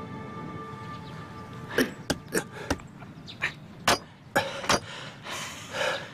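A held background-music chord for about the first two seconds, then a quick series of short knocks and scrapes of men clambering up onto a tiled wall, with a few short grunts.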